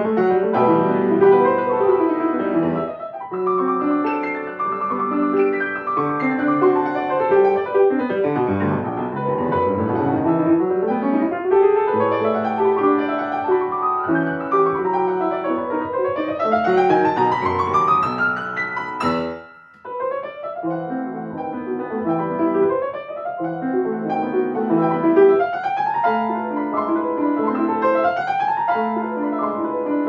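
Solo grand piano playing a classical piece full of fast scale runs and arpeggios, falling and rising sweeps in the middle section. About two-thirds of the way through it stops briefly, then picks up again with repeated rising runs.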